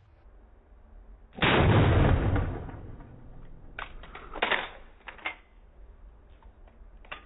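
A single 12-gauge shotgun shot about a second and a half in, dying away over about a second, followed by a scatter of smaller clicks and knocks.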